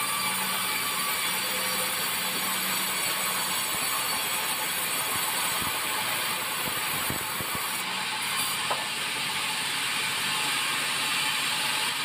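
Sawmill band saw running and sawing a squared white meranti timber into thick boards, a steady mechanical noise with a hiss high up. A few dull knocks come a little past the middle, as the timber shifts on the carriage rollers.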